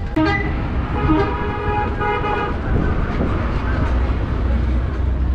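Vehicle horn honking: a brief toot, then a longer steady honk starting about a second in and lasting about a second and a half, over a constant low rumble of traffic.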